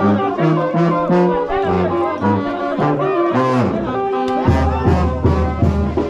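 Oaxacan brass band (banda de viento) playing a lively tune, brass melody over a moving tuba bass line. About three and a half seconds in a quick falling run leads into a steady bouncing oom-pah bass beat.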